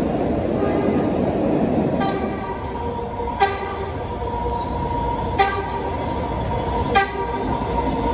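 MBTA train running with a low rumble. About two seconds in, a pitched warning signal begins, sounding in short, sharp strokes about every one and a half to two seconds over a steady ringing tone.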